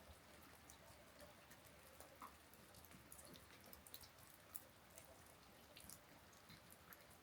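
Gentle rain: faint scattered raindrops ticking irregularly over a soft hiss.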